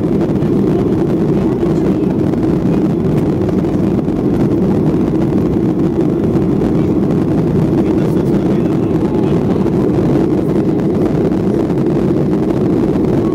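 Steady cabin noise inside a Boeing 737 climbing after takeoff: the engines at climb power and the rush of air past the fuselage blend into a dense, even rumble.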